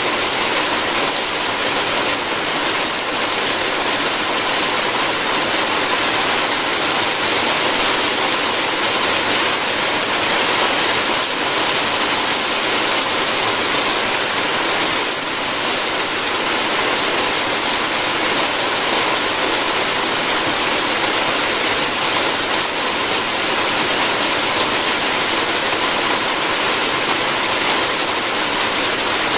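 Steady, heavy rain falling on a roof: a constant, even hiss of drops.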